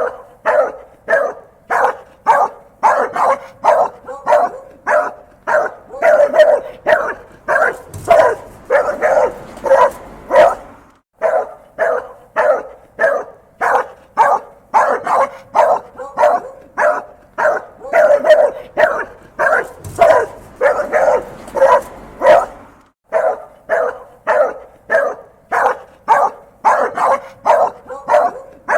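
A dog barking angrily and without let-up, about two barks a second, with brief pauses twice.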